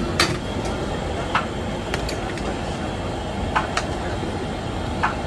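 Metal cooking tongs clicking and clinking against the pans about six times as breads are turned over gas burners, over a steady low rushing roar.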